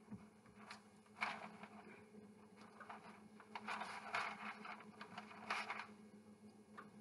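Parchment paper rustling and scraping in short bursts as hands press pastry dough into a pie tin and seal its cracks, loudest about a second in and again between about three and six seconds. A faint steady low hum runs underneath.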